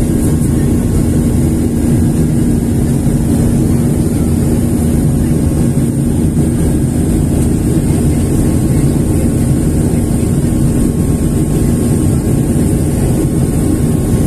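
Steady roar of a jet airliner's engines and rushing air as heard inside the passenger cabin during the climb after takeoff, with a low steady hum running through it and a high hiss above.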